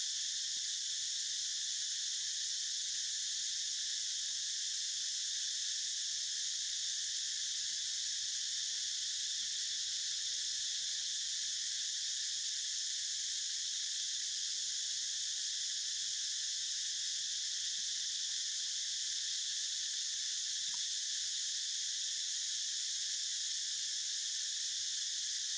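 A steady, high-pitched chorus of insects droning without a break.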